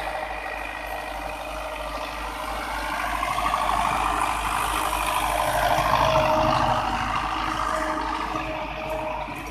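Belarus 510 tractor's four-cylinder diesel engine running under load as it pulls an offset disc harrow through the field. It grows louder toward the middle as the tractor comes close, then eases a little near the end.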